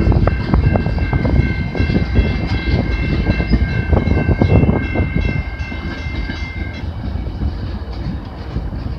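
VIA Rail passenger train passing: wheels clacking over the rail joints under a heavy rumble. A steady high ringing tone is held for about seven seconds, then stops and the train sound fades.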